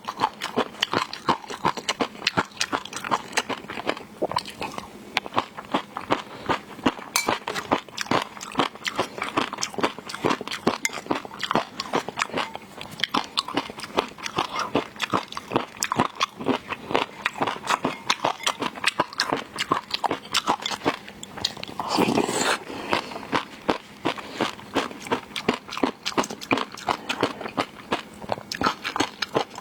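Close-miked chewing and crunching of seafood, with dense, rapid, wet clicks and crunches all through, and one louder, longer mouthful sound about three-quarters of the way through.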